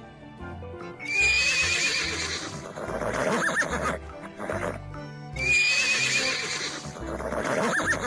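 A horse neighing twice, each a loud wavering whinny of about two seconds: one about a second in, and the same call again at about five and a half seconds. Background music plays under both calls.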